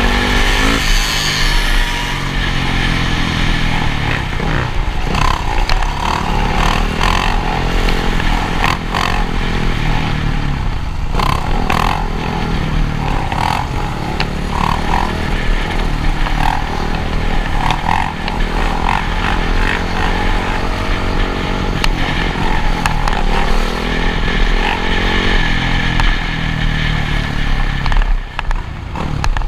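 Motocross dirt bike engines revving hard, their pitch climbing and dropping over and over as the bikes accelerate and shift.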